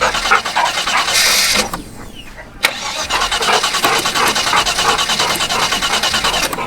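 Holden 304 V8 being cranked over by its starter with starting fluid sprayed into the throttle body, in two goes with a short pause between, the second one steady and rhythmic; it cranks without running, which the owner puts down to a suspected fuel pump problem after eight years of sitting.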